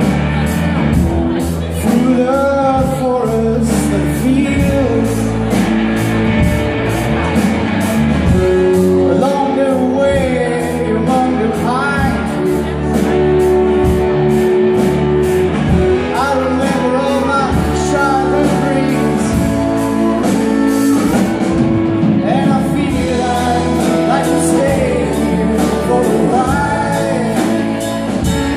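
Live rock band playing a song: sung vocals over electric guitars and a drum kit keeping a steady beat.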